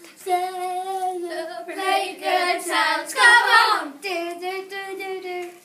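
A child singing unaccompanied in long held notes, loudest about three seconds in.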